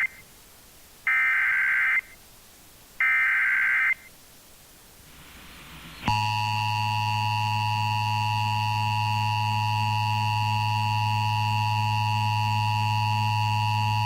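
Emergency Alert System broadcast over an FM radio stream, announcing a flood warning. Two bursts of the SAME digital header data tones, each about a second long, a second apart. About six seconds in, the steady two-tone EAS attention signal (853 and 960 Hz) starts and holds.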